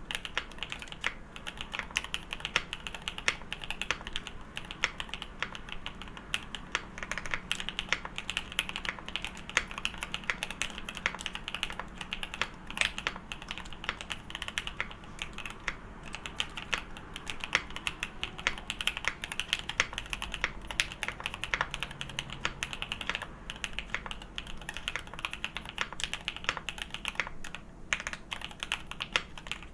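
Continuous typing on a Takishimu Kobo Mikeneko65 custom mechanical keyboard with OP Black SE switches, PBT keycaps and a polycarbonate plate: a steady stream of keystroke clacks, several a second, with now and then a louder stroke.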